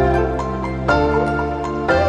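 Background music: a calm, melodic instrumental track with held notes and chords changing about once a second.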